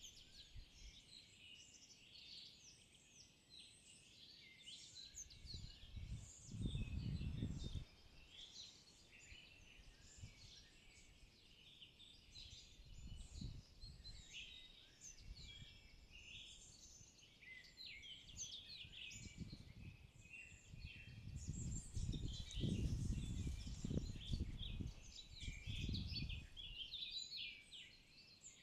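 Many songbirds singing at once in a spring forest, a dense chorus of overlapping chirps and trills. Low rumbling noise comes in twice, briefly about a quarter of the way in and longer near the end, louder than the birdsong.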